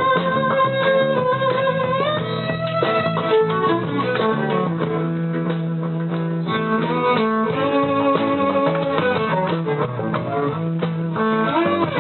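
Live band rehearsal playing an instrumental: guitar chords under a melody line. A long held melody note steps up in pitch about two seconds in, then a moving melody runs over the sustained chords.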